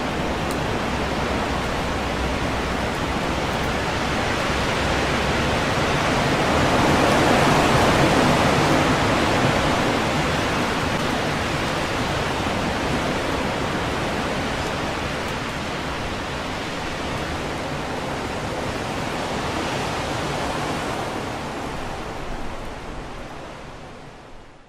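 Strong wind rushing through leafy trees, a steady noise that swells in a gust about a third of the way in and fades out at the end.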